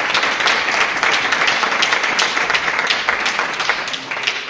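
A group applauding: many hands clapping steadily, dying away near the end.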